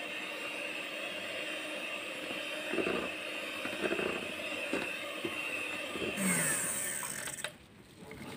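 Miyako electric hand mixer running at low speed, its motor whining steadily as the beaters whip thick butter-and-sugar cream in a plastic bowl, with a few light clatters. About six seconds in, the motor's pitch falls and it goes quieter.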